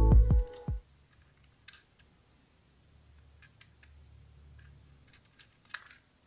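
Background music cuts off within the first second. After it come a few faint, sharp clicks and taps of a plastic building-block model ambulance handled and turned in the fingers, the clearest one near the end.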